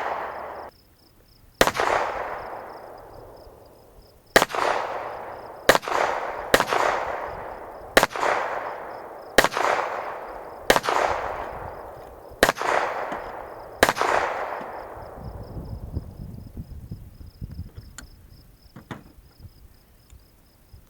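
Nine gunshots fired at uneven intervals of about one to two seconds, each followed by a long fading echo, until the last echo dies away. A faint, steady insect trill runs underneath.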